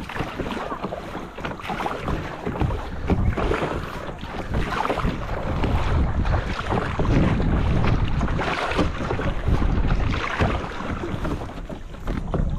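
Kayak paddle strokes splashing repeatedly in choppy sea water, with wind buffeting the microphone.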